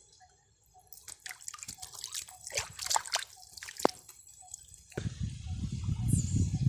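Water dripping and splashing in quick sharp ticks as a wet fishing net is handled, followed by a louder low rumble from about five seconds in.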